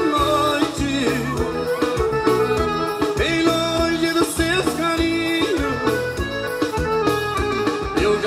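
Music playing: a song with shifting melodic lines over a steady bass beat.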